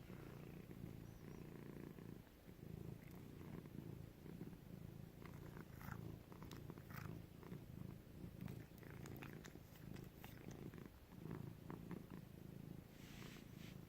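Tabby cat purring steadily, faint and close, with a few small clicks scattered through.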